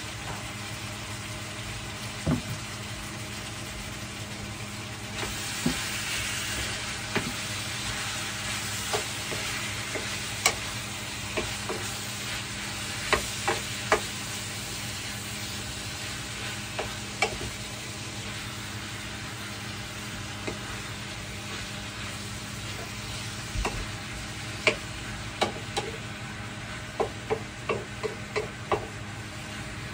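Cubed pork belly frying in a pan, sizzling steadily, while a wooden spatula stirs it with scattered clacks and scrapes against the pan, in quick runs about a dozen seconds in and near the end. The sizzle grows louder about five seconds in.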